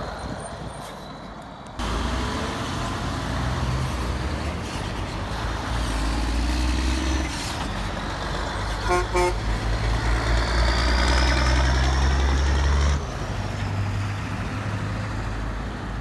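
Tri-axle dump truck's diesel engine pulling away, a loud, steady low rumble that drops off suddenly near the end. Two quick horn beeps come about halfway through.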